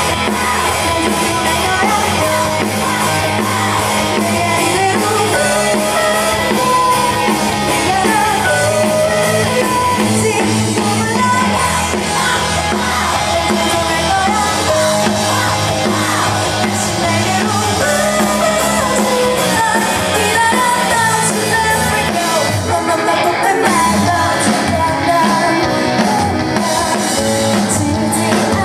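Live indie band playing through a stage PA, a female lead vocalist singing into a handheld microphone over the band.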